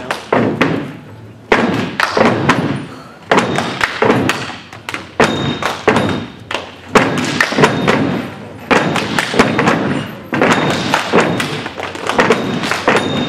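Fraternity step team stepping in unison: a rhythmic run of loud stomps and hand claps and slaps by a group of men, each hit ringing briefly in the hall.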